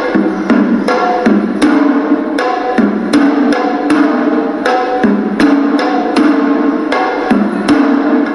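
Hewisi, Sri Lankan temple ritual drumming: hand-beaten drums struck in a fast, repeating pattern of sharp, ringing strokes.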